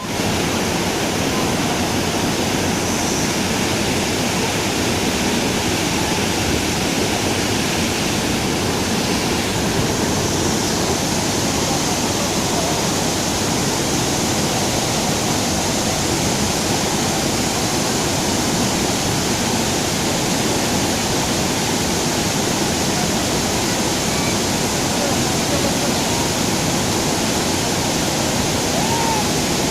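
Waterfall: water falling in a loud, steady, even noise that does not change.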